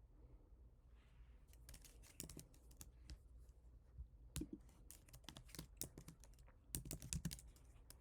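Faint typing on a computer keyboard: irregular runs of key clicks starting about a second and a half in, with a few louder keystrokes.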